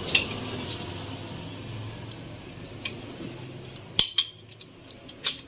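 Steel spanner clicking and clinking against the nuts and the cylinder head of a Yamaha RX135 engine while its four head bolts are tightened. There are a few sharp metal clicks, the loudest about four and five seconds in.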